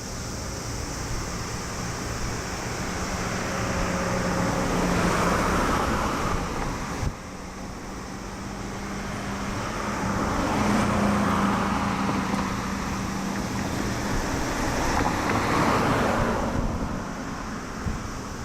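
Road traffic: vehicles pass one after another, each rising and fading over a few seconds, about three times, with a low hum and wind on the microphone. The sound drops abruptly about seven seconds in.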